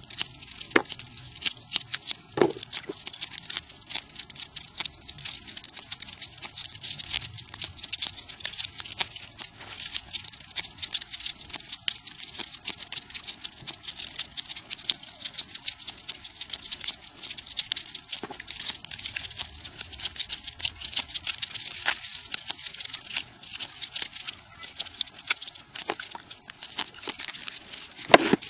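Paper crinkling and rustling as folded triangular origami units are pushed and slotted together by hand, a rapid, dense crackle from sped-up playback.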